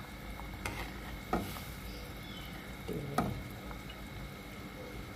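Metal spatula stirring seblak broth in a metal pan on a gas stove, clinking against the pan three times over a faint steady simmer.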